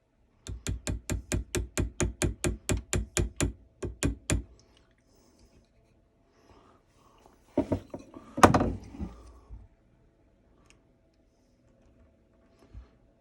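Rapid, even tapping of a mallet on a carving chisel cutting into a wooden rifle stock, about five taps a second for some four seconds, then after a pause two louder knocks about a second apart.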